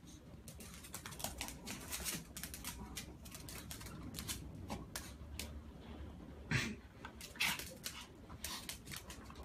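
A dog and a cat scuffling on a tiled floor: quick, irregular clicks of claws and bodies on the tiles, with two louder sounds about six and a half and seven and a half seconds in.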